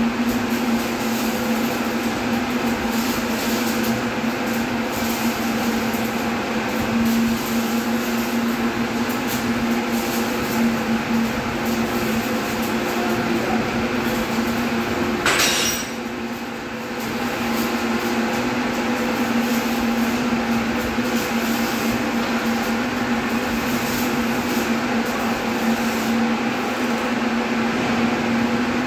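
Steady machinery hum with a constant low tone over an even noise, broken once by a brief sharp burst about fifteen seconds in.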